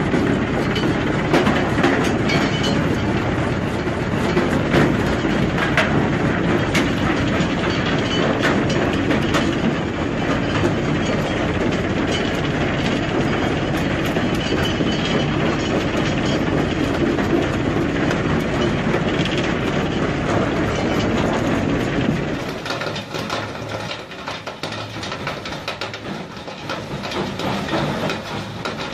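Industrial shredder running and grinding material, a dense, continuous mechanical clatter with a heavy low rumble. About 22 seconds in, the rumble drops away and the sound becomes quieter and thinner.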